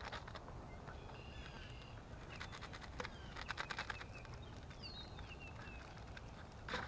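A small paper flavouring packet being handled and torn open, with a quick run of crackles about three and a half seconds in and a louder crackle near the end. Birds chirp in the background.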